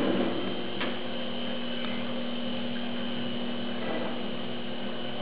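12 by 36 Atlas lathe running with a steady hum while thread-cutting a long chrome shaft; a louder rushing noise dies away right at the start, and a single sharp click comes about a second in.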